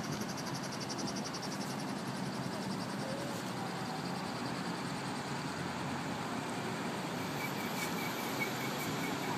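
Steady outdoor background noise, a broad even hiss and rumble like distant traffic, with a fast faint pulsing hiss in the first couple of seconds and a faint string of repeated high chirps near the end.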